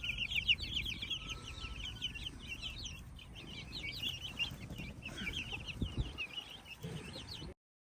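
A group of young chicks peeping, many short high peeps overlapping in a constant chorus; the sound cuts off suddenly near the end.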